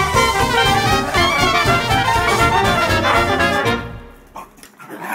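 Background music with brass, in a swing style, fading out about four seconds in; a few faint, brief sounds follow near the end.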